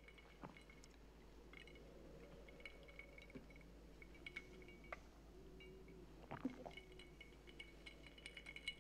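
Near silence: faint room tone with a few soft clinks of a drinking glass as it is raised and set down on the bar, the clearest about six and a half seconds in.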